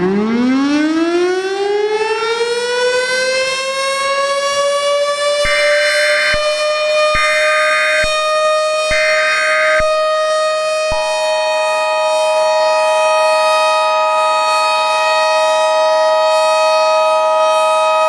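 Civil defense siren winding up from a low pitch to a steady high wail over the first few seconds, then holding. Over it come three short bursts of EAS SAME header data, about a second each. From about eleven seconds in, the two-tone EAS attention signal sounds steadily alongside the siren.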